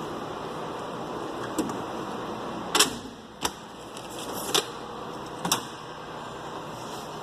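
Steel tool-chest drawers being pulled out and pushed shut, with a few sharp metal clunks and clicks between about one and a half and five and a half seconds in, over a steady background hiss.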